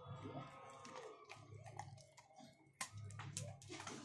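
Dog crunching a dog biscuit: a few sharp, irregular crunches, the loudest a little under three seconds in.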